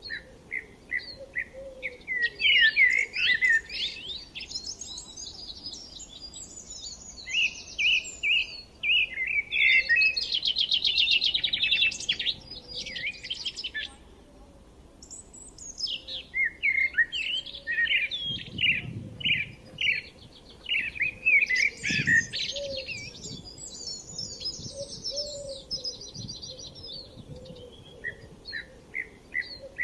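Songbirds singing: phrases of rapid chirps and fast trills, one after another with brief lulls between.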